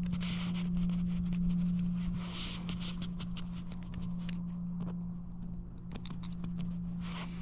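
Single-edge razor blade scraping leftover cured windshield-repair resin off the glass: a scratchy scrape with many small clicks, heaviest in the first few seconds, over a steady low hum.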